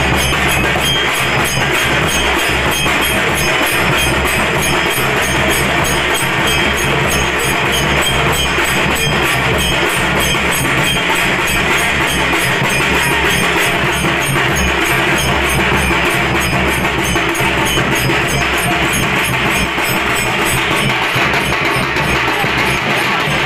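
Naman folk drumming: large metal barrel drums and smaller drums beaten in a fast, steady, loud rhythm, with jingling metal percussion on top.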